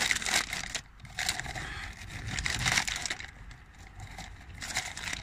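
Clear plastic bag and blue plastic mesh sleeve crinkling and rustling in irregular crackles as a new piston is unwrapped by hand.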